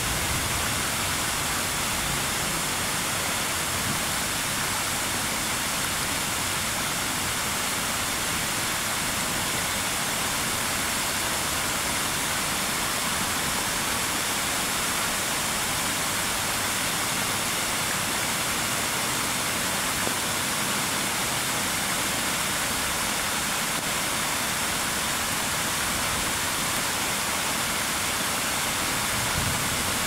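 Many fountain jets falling onto a shallow paved basin, a steady, even rush of splashing water.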